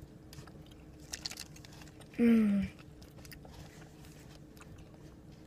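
A child chewing a piece of Efrutti gummy candy pizza, with faint soft mouth clicks. About two seconds in comes a short hummed "mm" that falls in pitch.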